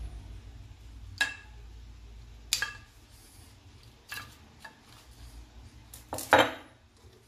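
Cinnamon sticks and a silicone spatula knocking against a small saucepan of chopped apples: four sharp knocks roughly a second and a half apart, the last the loudest.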